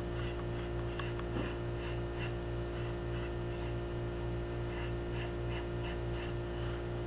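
Bristle brush scrubbing around the ear of a soft-fired porcelain (greenware) doll head in quick, even strokes, about four a second. The scratchy strokes are faint over a steady electrical hum.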